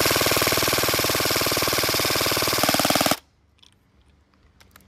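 Airsoft electric gun firing a long full-auto burst on a 7.4 V LiPo battery, a rapid, even rattle of shots. About three seconds in the sound changes briefly and then stops suddenly as the magazine runs empty.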